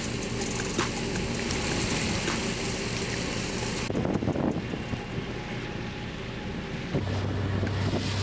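Fishing boat's engine running, with wind buffeting the microphone and churned sea water washing around the stern; a steadier low engine hum comes in near the end.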